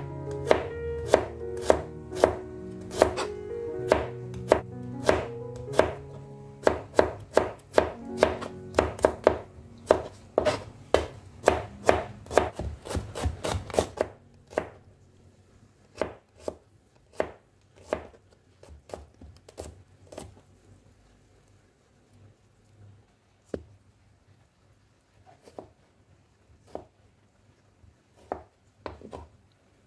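Kitchen knife chopping garlic and shallots on a plastic cutting board: sharp knocks of the blade against the board, about two a second, over background music for the first half. About halfway through the music stops and the cuts come slower and fainter, with a tomato being cut near the end.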